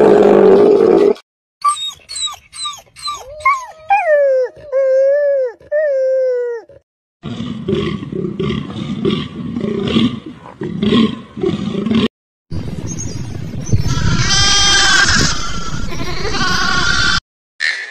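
Several different animal calls, one cut after another with brief silences between. A short noisy call comes first, then a run of high pitched calls that fall in pitch and then hold steady. Two longer stretches of rough, noisier calls follow, the second with a fast pulsing part in the middle.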